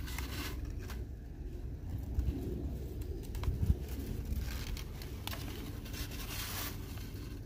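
A dove cooing, with crumpled packing paper rustling now and then as it is handled.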